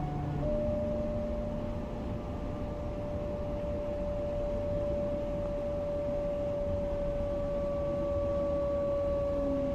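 Class 425 electric multiple unit: a steady electric whine from its power electronics holds one pitch over a low rumble, with a brief falling tone near the end.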